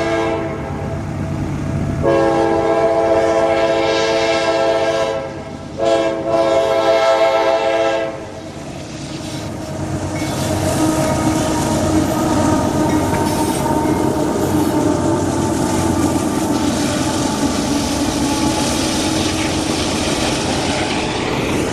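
Freight train's locomotive air horn sounding two blasts: a long one about two seconds in and a shorter one about six seconds in. After that the locomotive and its coal cars rumble and clatter past on the rails.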